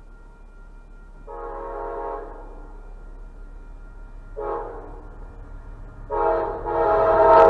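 Amtrak Downeaster locomotive's multi-chime air horn sounding the grade-crossing warning: a blast of about a second, a short blast, then a long blast that grows louder as the train approaches.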